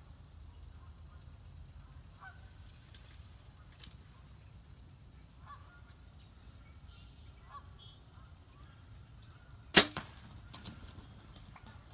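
A bow is shot from the blind about ten seconds in: one sharp snap, followed a moment later by a second, softer knock. Before the shot, a few short faint calls come from wild turkeys.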